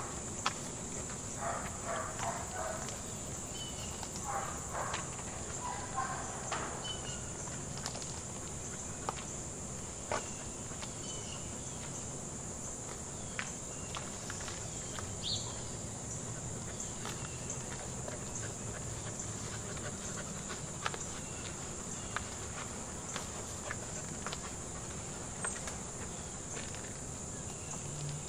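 Steady high-pitched drone of an insect chorus, with occasional light footsteps on pavement.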